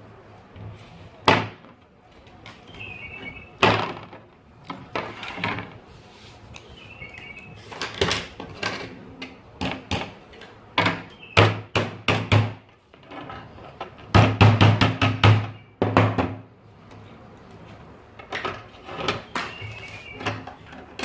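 Wire cutters snipping through a lead sheet: a string of sharp clicks and snaps at irregular spacing, with a quick run of several cuts about two-thirds of the way through.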